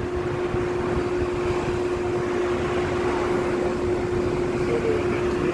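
Small boat's motor running at a steady speed: a constant hum over a rush of wind and water.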